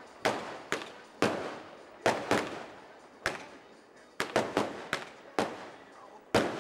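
Weco consumer firework battery firing a rapid string of shots: about a dozen sharp bangs at uneven spacing, from two or three a second to one a second, each trailing away over about a second.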